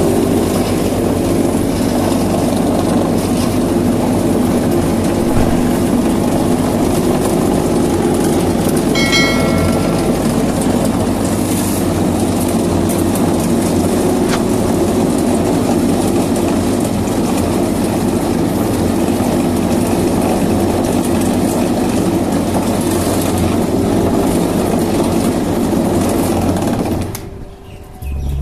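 Concrete vibrating table running with a steady mechanical hum, shaking steel door-frame moulds full of fresh concrete to settle it and drive out air. It shuts off near the end.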